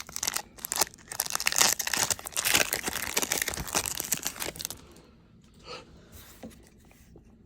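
Baseball card pack wrapper being torn open and crinkled by hand, a dense run of crinkling and tearing that stops about four and a half seconds in, followed by a few faint handling sounds.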